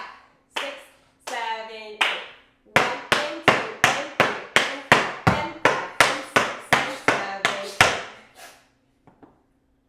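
Metal taps on tap shoes striking a wooden tap floor: a few scattered taps, then an even run of sharp taps at about four a second for some five seconds, stopping near the end.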